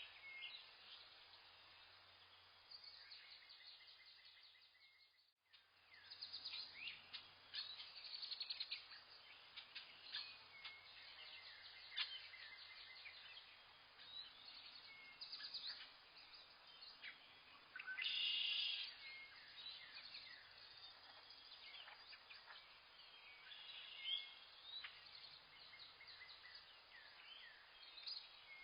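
Several wild birds chirping and calling, a mix of short high chirps and quick sweeping notes, with a louder burst of calls about two-thirds of the way through. The sound fades out briefly about five seconds in and comes back.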